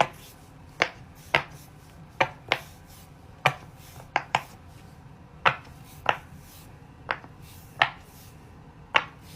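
Bubbles of a silicone pop-it fidget toy being pressed through one at a time: about a dozen sharp pops at uneven intervals, sometimes two in quick succession.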